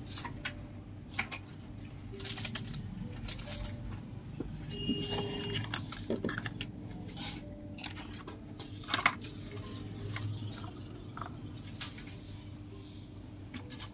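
Scattered light clicks and small clatter of objects being handled, a little louder about nine seconds in, over a steady low hum.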